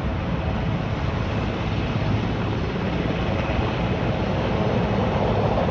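Heavy-lift helicopter's rotor and engines running, a steady noise that swells slightly near the end.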